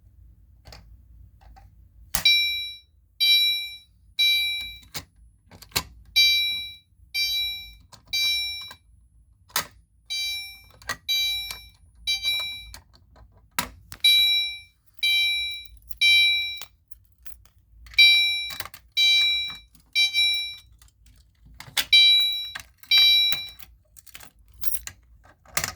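Fire alarm horn sounding the temporal code 3 evacuation pattern after a manual pull station is pulled: loud, high beeps in sets of three about a second apart with a pause between sets. It starts about two seconds in and cuts off after two beeps of the sixth set, near the end, with a few sharp clicks in between.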